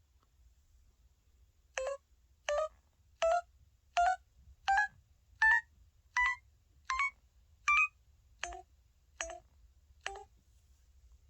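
SK-900 mobile phone's keypad dial sound in its 'melody' setting: twelve short beeping notes, one per key press, about two-thirds of a second apart, starting about two seconds in. The notes climb step by step in pitch over the first nine, then the last three are lower.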